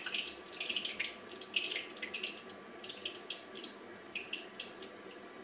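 Hands squeezing and rolling a wet, gram-flour-bound chicken mince paste into balls in a stainless steel bowl: irregular squelching and sticky smacking sounds.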